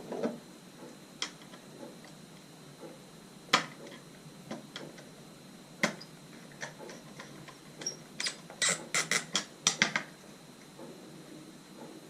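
Small sharp clicks and taps from handling an electrical socket, its wires and a screwdriver while fitting the conductors into the terminals: a few single clicks, then a quick run of about eight clicks near the end.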